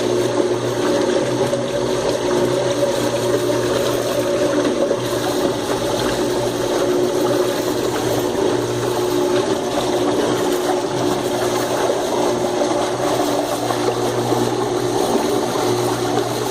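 Washing machine pump running steadily, with a hum over churning, rushing water: the sound of the pump cavitating.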